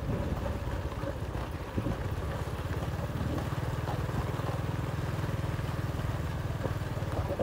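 Motorbike engine running steadily while riding along a gravel road, its low firing pulses even throughout, with a brief knock about two seconds in.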